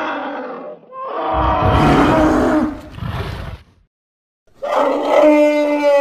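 Sound-designed woolly mammoth roars built from layered animal calls: a call fading out, a deep rough roar from about one second to nearly four, then after a short silence a louder, steadier trumpeting call starting near the end.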